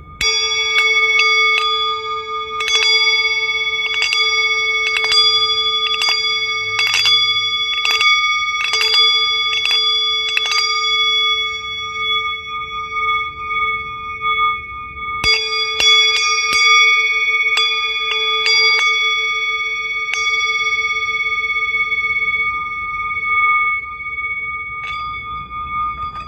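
Metal bells or chimes struck over and over, each strike leaving ringing tones that overlap into a shimmering wash, over a steady held tone. The strikes come in a run through about the first eleven seconds, pause, return in a shorter run a few seconds later, and then the tones ring out.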